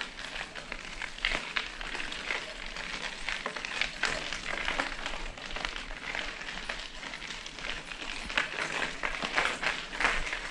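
Footsteps and pushed bicycles crunching over a gritty floor: a dense, irregular crackle of small clicks with no steady tone.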